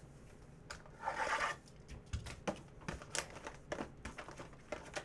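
Trading-card pack packaging torn open in a short rip about a second in, with light taps and rustles of cards being handled.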